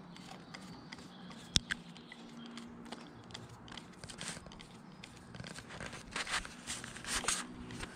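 Light metallic clicks and scrapes of a 10 mm spanner working the pivot nut off a motorcycle brake lever, with one sharp click about one and a half seconds in and a few louder scrapes near the end.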